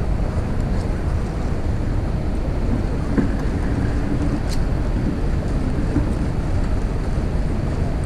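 Steady low rumble of wind on the microphone.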